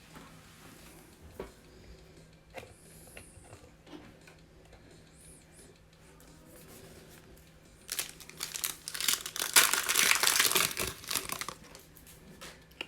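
Foil wrapper of a Prizm football hobby card pack crinkling as it is torn open. The crinkling is loud for about three and a half seconds in the second half, after a few light clicks of cards being handled.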